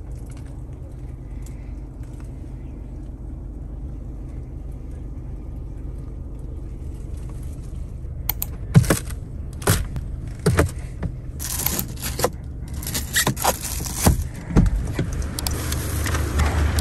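A steady low hum inside the Mazda CX-30's cabin. About halfway through comes a run of sharp clicks, knocks and scrapes as the interior fittings, such as the glovebox and door trim, are handled.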